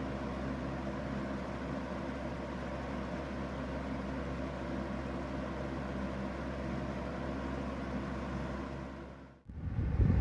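Aerospeed BX100 box fan running steadily: a motor hum with a whoosh of air. Near the end the sound drops out briefly and gives way to a much louder, gusty rumble of the fan's air hitting the microphone.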